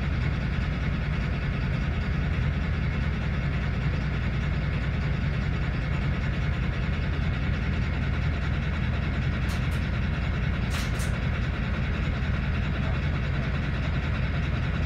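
Steady low rumble of a moving vehicle, with a few faint clicks about ten seconds in.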